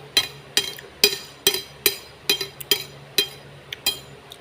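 A metal utensil clinking against a ceramic or glass bowl, about two ringing clinks a second for some four seconds, as noodles are mixed and served.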